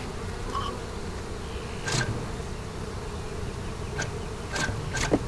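Honeybees buzzing steadily around an opened hive, with one bee passing close to the microphone near the end, its pitch falling. A few sharp clicks stand out, one about two seconds in and three more near the end.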